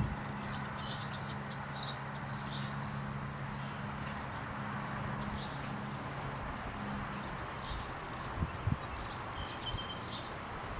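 Small songbirds chirping, short high calls repeated every second or so over a steady outdoor hiss. A low steady hum runs under the first seven seconds or so.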